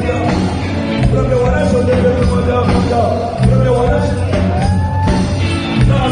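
Live reggae band music, with a singer holding long notes and sliding up in pitch a few times over a heavy pulsing bass line.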